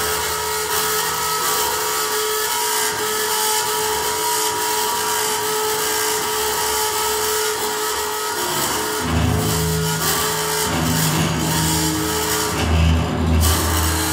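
Double bass bowed with a scratchy, scraping bow texture, over steady sustained feedback tones. From about nine seconds in, low bowed notes sound out beneath the scraping.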